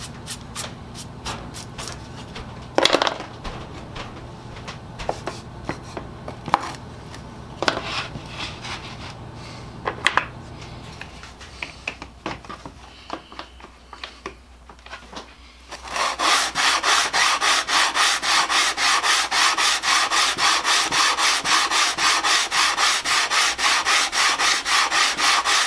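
Wooden sole of a transitional hand plane being rubbed back and forth on 120-grit sandpaper over a glass plate, flattening the sole; quick, even strokes start about two-thirds of the way in and keep going. Before that, scattered taps and light brushing are heard as the paper is wiped off and the plane is set down on it.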